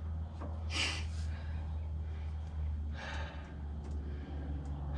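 A man breathing hard with heavy, noisy exhalations as he strains at awkward work, one loud breath about a second in and another about three seconds in, over a steady low hum.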